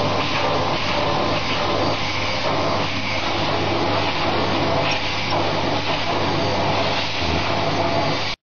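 Vacuum cleaner running steadily, its hose nozzle held against a cat's fur. The sound cuts off abruptly near the end.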